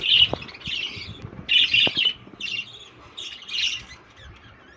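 Pet lovebirds in a cage colony giving a run of shrill squawking calls, about seven in quick succession, thinning out after about four seconds.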